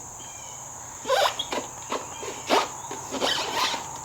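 Motorcycle seat being slid into place and seated on the rear fender: a run of scrapes and knocks starting about a second in, with two louder knocks, the second of them about two and a half seconds in. Crickets chirp steadily in the background.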